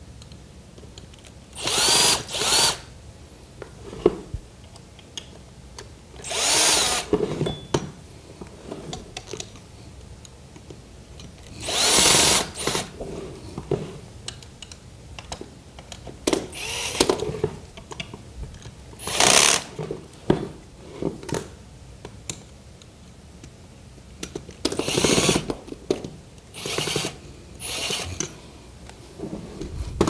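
Cordless drill running in about eight short bursts, each of a second or less, spinning up and stopping as it drives in the clamping bolts of an angle-grinder dust shroud. Light clicks and handling clatter come between the bursts.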